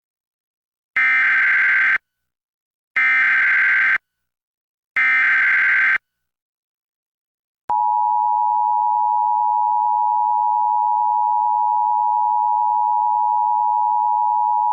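Emergency Alert System data header: three one-second bursts of digital data tones, one second apart, coding a Child Abduction Emergency (AMBER Alert). About halfway through, the EAS two-tone attention signal (853 and 960 Hz together) starts up as one steady, loud tone that runs on past the end.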